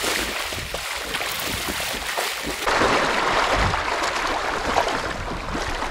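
Water splashing and sloshing around legs wading through a shallow, stony river, over the steady rush of the river; the splashing gets louder about three seconds in.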